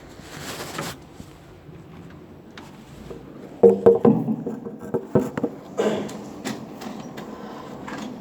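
A man coughing and clearing his throat in several short, irregular bursts, starting a few seconds in; the title says he has a cough.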